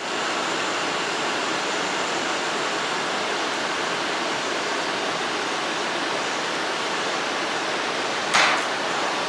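Steady rushing hiss of a subway car's ventilation and air-conditioning running while the train stands in the station, with a short sharp hiss about eight seconds in.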